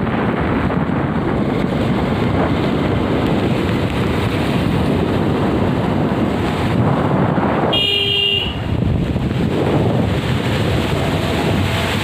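Steady rushing wind noise on the microphone, with a vehicle horn honking once, briefly, about eight seconds in.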